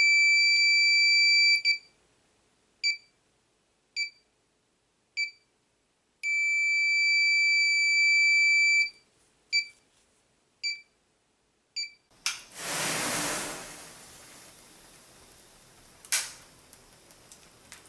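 555-timer EKG monitor sound-effect circuit: a steady high flatline tone, then three short heartbeat beeps about a second apart. Another flatline tone lasts about two and a half seconds, followed by three more beeps. Near the end comes a loud burst of rushing noise that fades away, then a click.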